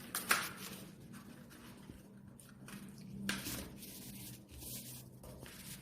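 A sheet of paper being folded and creased by hand: faint rustling and rubbing, with two louder crinkles, about a third of a second in and just past three seconds.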